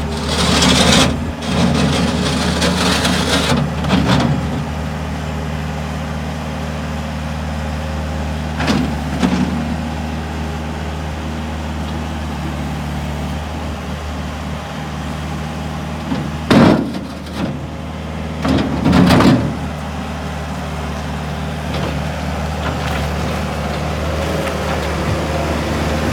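Bobcat S205 skid steer's diesel engine running steadily at idle, with several short louder bursts of noise over it: a long one near the start, then others about a third and two-thirds of the way through.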